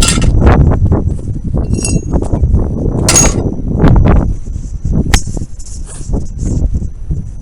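Footsteps and handling noise over debris, with irregular knocks and scuffs over a loud low rumble on the microphone, and a brief metallic clink just under two seconds in.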